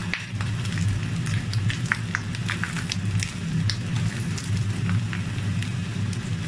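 Pumpkin slices and salted egg yolk sizzling and crackling in hot oil in a nonstick frying pan as they are stirred with a silicone spatula, over a steady low hum.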